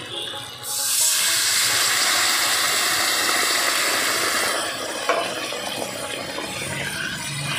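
Water poured into a hot karai of oil, spices and raw mango pieces, sizzling loudly with a sudden hiss about half a second in. The hiss holds for about four seconds, then settles to a softer sizzle as the mixture is stirred, with one sharp tick about five seconds in.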